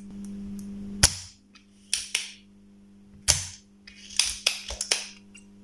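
Sharp taps and clicks of a hand tool against a circuit board: single taps about one, two and three seconds in, then a quicker run of clicks near the end. A steady low electrical hum runs beneath.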